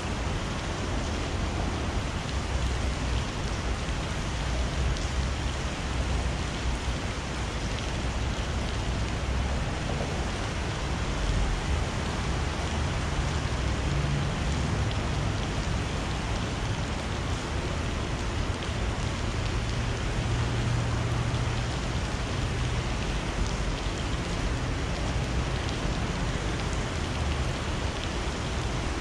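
Steady hiss of rain over a river, with a low rumble underneath that swells a few times.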